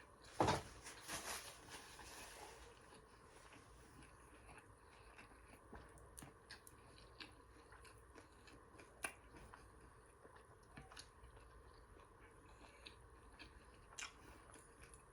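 A person biting into and chewing a mouthful of fried beef with green bell pepper and onion: a sharp bite about half a second in, then quiet chewing with scattered soft mouth clicks.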